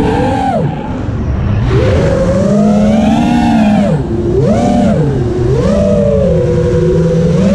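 Racing quadcopter's Brother Hobby Deadpool 2306 2450 kV brushless motors and propellers whining in flight, the pitch rising and falling with the throttle. The pitch drops sharply about a second in and dips twice more around the middle.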